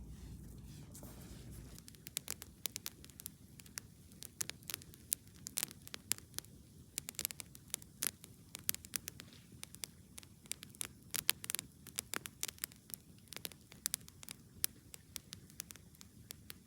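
Campfire crackling, with irregular sharp pops that begin about two seconds in.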